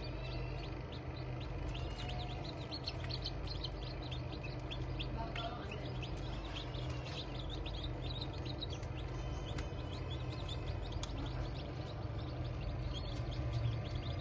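Many chicks peeping in rapid, overlapping short high chirps, over a steady low hum.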